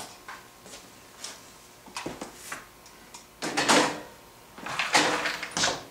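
Metal hand tools and hardware clinking and clattering as they are picked up and set down on a cast-iron table saw top and in a plastic parts tub. There are scattered small knocks, with the loudest rattles about three and a half and five seconds in.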